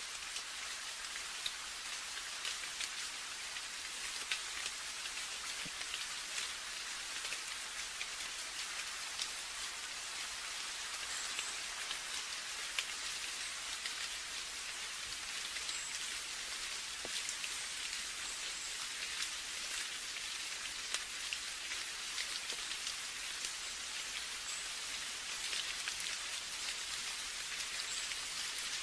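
Steady rain falling: an even hiss with many individual drops ticking throughout.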